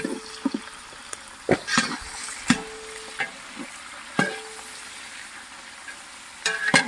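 Sliced onions sizzling in hot oil in a large metal pot while a perforated metal ladle stirs them. The ladle knocks and scrapes against the pot about five times, and the pot rings briefly after several of the knocks.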